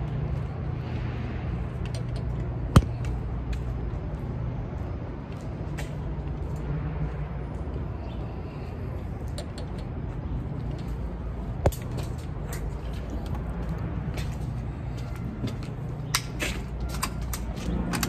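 Steady low rumble of city background noise with a few isolated sharp clicks: a loud one about three seconds in, another just before the middle, and a cluster of clicks near the end.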